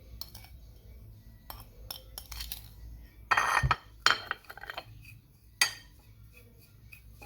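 A spoon clinking and scraping against a bowl as brown sugar is scooped and added to grated turnip, in scattered short strokes. The loudest is a half-second scrape a little over three seconds in.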